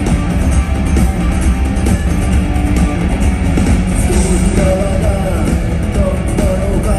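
Live rock band playing in an arena, with electric guitars, bass and drums. A sung melody comes in about four seconds in.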